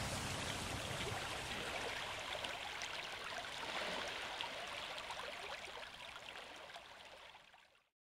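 Shallow stream babbling and rushing over pebbles, a steady splashy wash of water that slowly fades and cuts off just before the end.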